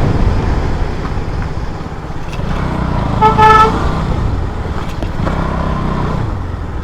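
KTM Duke 200's single-cylinder engine running, with one short horn toot about three seconds in.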